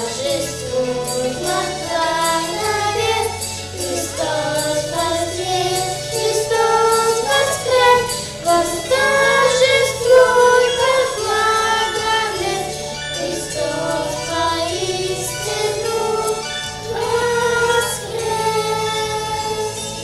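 Children's choir singing a hymn into microphones over an instrumental accompaniment with a steady bass line.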